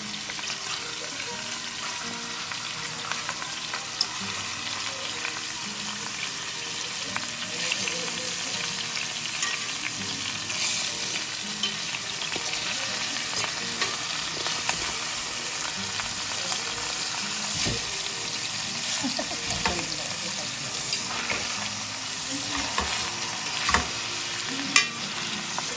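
Black cod (sablefish) frying in a pan, sizzling steadily as the oily fish renders its fat, with a few sharp clicks from a utensil.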